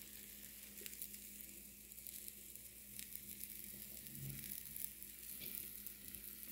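Beaten eggs with spinach and onion sizzling faintly in a nonstick frying pan, a steady hiss with small crackles.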